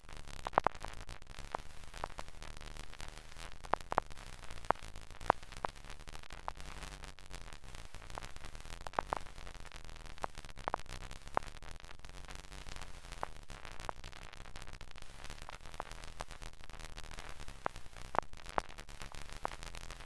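Faint steady hiss with irregular sharp clicks and crackles scattered through it, like static.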